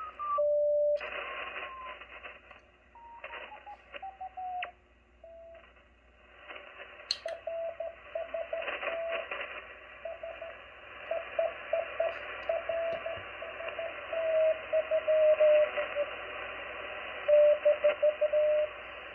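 Morse code (CW) from an on-air amateur station, heard through a transceiver and an MFJ-281 ClearTone speaker in a wooden box. A single tone keys on and off over steady band hiss, and its pitch slides down a few times as the receiver is tuned.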